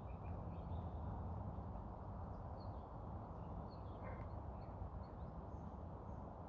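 Faint, scattered bird chirps over a steady low outdoor rumble on an evening walk.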